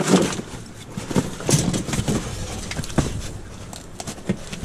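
Rummaging through trash in a dumpster: rustling with an irregular series of sharp knocks and clunks as items are shifted.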